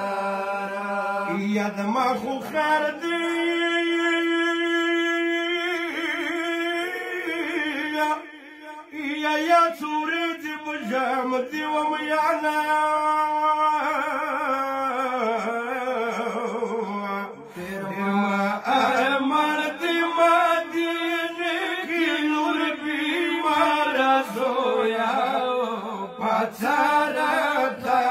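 A man singing a Pashto noha, a mourning lament, unaccompanied. He holds long notes and adds wavering ornaments, breaking for breath about eight and seventeen seconds in.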